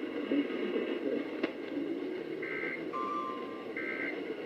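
Emergency Alert System end-of-message data bursts: short two-tone digital bursts, two of them about a second and a half apart starting midway, with a brief steady lower tone between them, over faint muffled radio audio. The bursts signal the end of the alert message.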